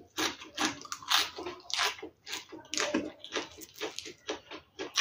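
Water splashing and sloshing in quick, irregular bursts, several a second.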